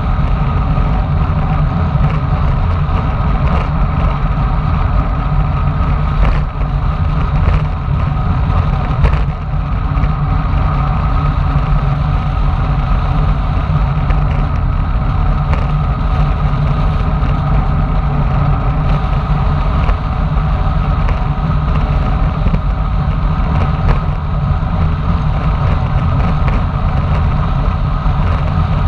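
Wind rushing over the microphone of a bike-mounted action camera on a fast road-bike descent, a steady heavy rumble with tyre noise on the pavement. There are a few brief knocks about six to nine seconds in.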